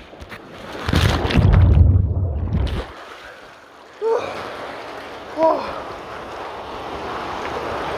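Rushing, splashing water as a rider shoots out of a water slide into the splash pool. The rush is loudest for about two seconds, goes muffled for a moment, then the rider gasps twice on surfacing over steady sloshing water.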